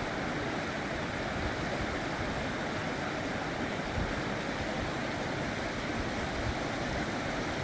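Gold Creek, a cold glacier-fed mountain creek, running over rocks with a steady, even rushing.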